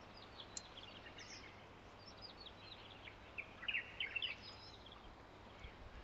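Small birds chirping and singing faintly over a light steady hiss, the calls thickest a little past halfway.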